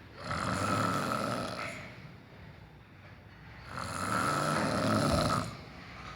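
A person snoring: two long, rasping snores, each nearly two seconds long and about three and a half seconds apart.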